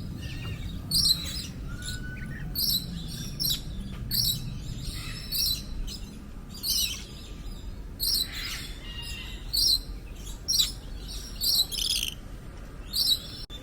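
Birds chirping: a series of short, sharp high-pitched calls, about one a second and sometimes in quick pairs, over a steady background murmur.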